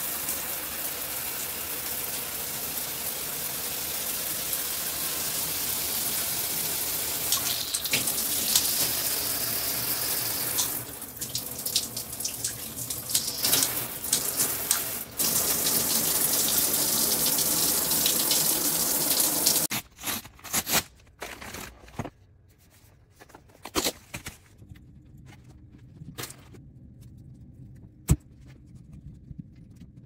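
Water spraying steadily from a handheld shower head. It turns choppy for a few seconds in the middle, then cuts off about twenty seconds in, leaving a few scattered knocks and one sharp click.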